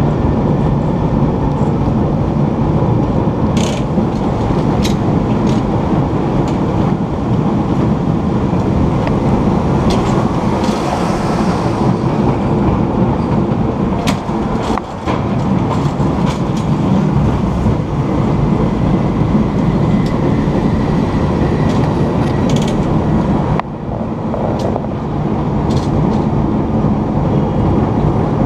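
San Francisco Powell-Mason cable car running along its rails: a steady low running noise with scattered sharp clicks and clacks, dipping briefly about halfway through and again near the end.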